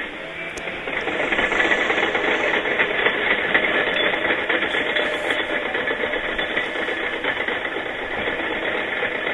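Bulldozer at work: its diesel engine running under a steady, dense clatter and rattle of the steel tracks and machinery.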